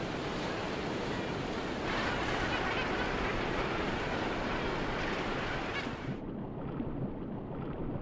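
Surf washing and churning in a steady rush of seawater. About six seconds in the sound turns dull and muffled, as heard from underwater.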